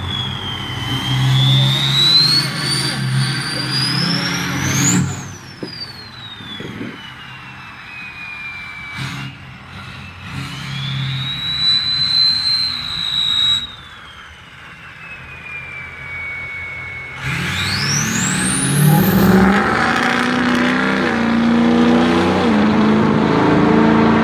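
2003 Ford F-250's turbocharger whistling loudly over the engine. The whistle climbs in pitch as the engine revs and slides slowly back down as the turbo spools down, three times. On the last run-up it shoots very high and the engine stays loud beneath it.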